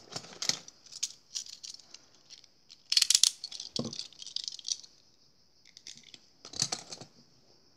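Scattered clicks and rattles from handling a crochet hook and wool yarn while the yarn is cut and the end freed, the loudest about three seconds in. Cicadas keep up a steady high hiss behind it.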